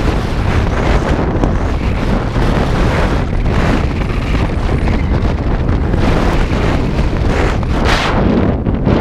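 Wind buffeting a GoPro Hero 4 Silver's microphone during a fast downhill ski run, a loud, steady rumbling rush that swells and eases, mixed with the hiss of skis sliding over snow.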